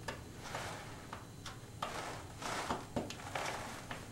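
Screwdriver turning the mounting screws out of a thermostat's plastic base plate: faint, scattered scrapes and small clicks.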